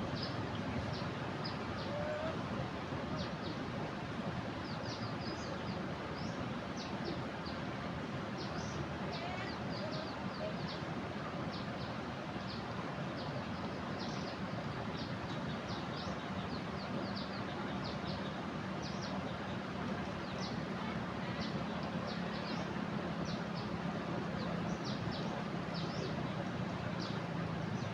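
Steady rush of floodwater, with many short, high bird chirps throughout. A low hum joins about halfway through.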